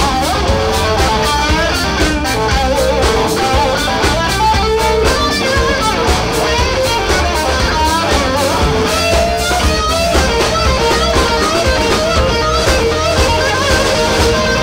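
Live blues-rock band: an electric guitar lead line with bending, wavering notes over drums and bass guitar.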